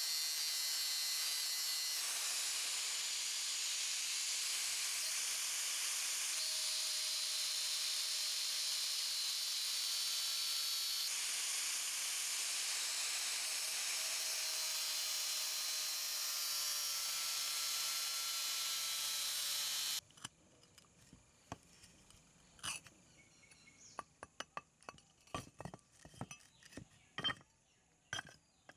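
Makita angle grinder grinding rust off the cast-iron body of an antique charcoal iron: a steady, high grinding hiss that cuts off suddenly about two-thirds of the way through. After it, scattered clinks and knocks of the iron's metal parts being handled.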